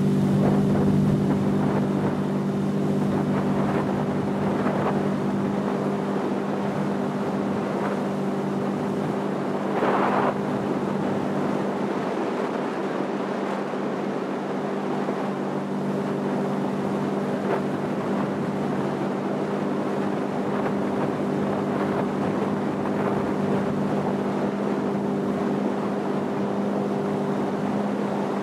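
Motorboat engine running steadily at cruising speed, a constant drone over the rush of water and wind on the microphone, with a brief louder rush of water about ten seconds in.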